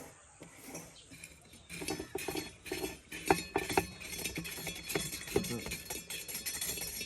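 A quick, irregular clatter of small clinks and knocks, starting about two seconds in and going on after that.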